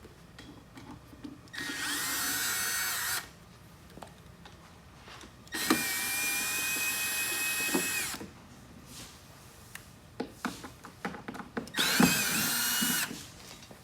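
Cordless power screwdriver with a Phillips bit backing out panel screws: three runs of motor whine, each rising in pitch as the motor spins up and then holding steady. The middle run is the longest and the last one comes near the end. Small clicks and knocks fall between the runs.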